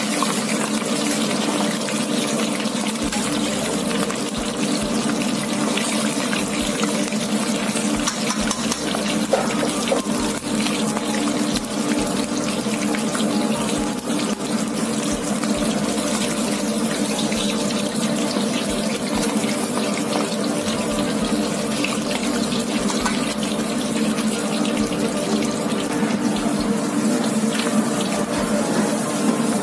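Pork knuckle deep-frying in a wok of hot oil: a steady, dense sizzle with scattered crackles and pops. A steady hum runs underneath.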